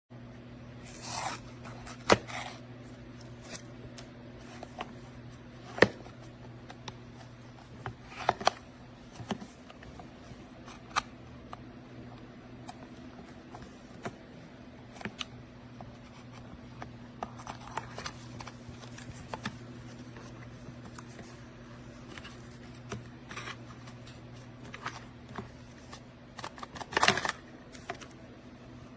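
Packaging being handled: intermittent rustles and scrapes with a few sharp clicks, over a steady low hum.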